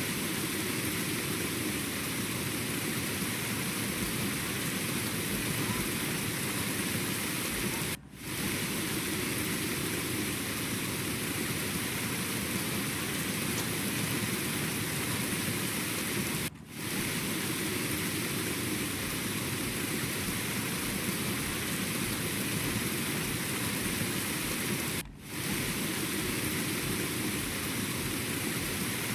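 Steady rain-like rushing noise that drops out briefly three times, about eight and a half seconds apart.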